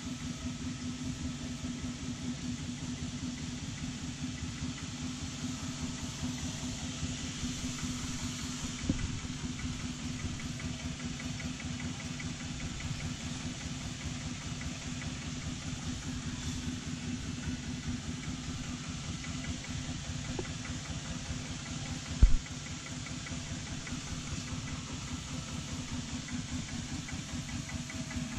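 Jiangdong single-cylinder diesel engine of a homemade tractor idling steadily. A light thump about a third of the way in and a single sharp knock, the loudest sound, about three-quarters of the way through.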